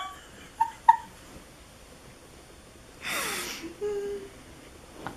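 Laughter winding down into breathy vocal noises: two short high squeaks, then about three seconds in a loud breathy gasp or exhale with a falling voice, followed by a brief low hum.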